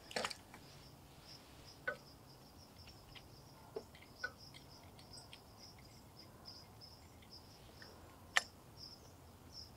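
A few light metallic clicks and taps from hand tools on the snowblower engine while the new carburetor is being tightened in place. The clicks come at irregular intervals, several seconds apart, over a faint, steady run of high chirps.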